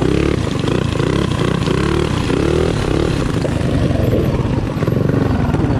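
Mini bike's small single-cylinder engine running hard. Its pitch rises and drops back several times over the first three seconds as the throttle is worked, then holds steadier.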